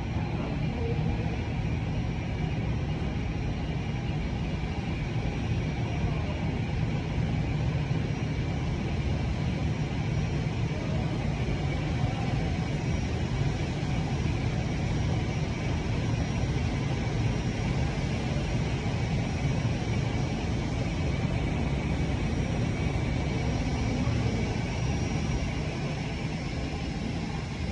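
Airbus A320-family jet airliner's engines running at taxi idle as the aircraft rolls slowly in to its parking stand: a steady low rumble with a faint high-pitched whine over it.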